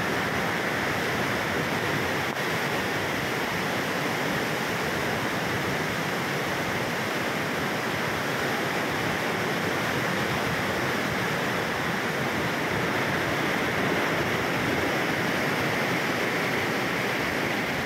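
Musi River floodwater rushing and churning in fast whitewater, a steady unbroken rush of water.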